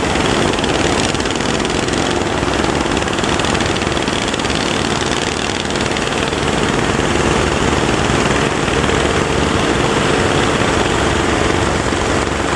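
A boat's engine running steadily, heard over a constant rushing noise of heavy surf.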